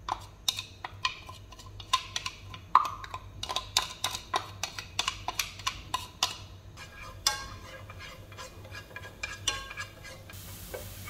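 Wooden chopsticks tapping and scraping on a small glass bowl as minced garlic is knocked out into a nonstick frying pan: a run of quick, sharp clicks, some with a brief glassy ring. Near the end the chopsticks stir the garlic in the pan and a faint sizzle begins as it starts to fry in the oil.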